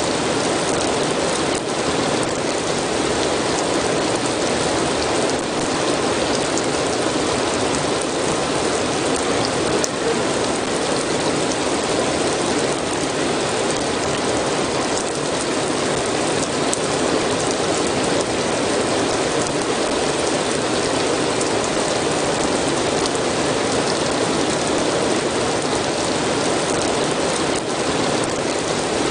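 Steady, even rain, dense and unbroken, with faint scattered drop ticks.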